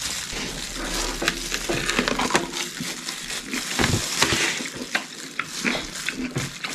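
Plastic gloves crinkling and a pickle being squeezed and pressed onto a paper plate: a steady crackling rustle full of small clicks.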